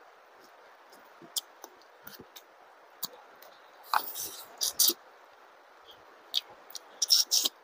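Close-up eating sounds: scattered wet mouth clicks and smacks while chewing, with louder clusters about four and seven seconds in.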